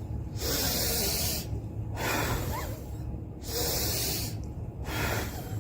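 A woman's forceful breaths out through the mouth, blowing at a tissue held in front of her as a lung exercise: two long, strong blows of about a second each, with softer breaths in between and near the end.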